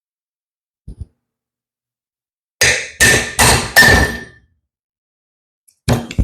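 Hammer striking metal four times in quick succession, each blow ringing briefly. There is a small knock before the blows and a couple of lighter clanks near the end.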